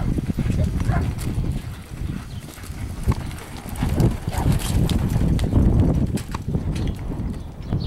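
Horses and a steer running on loose arena dirt, with uneven, thudding hoofbeats.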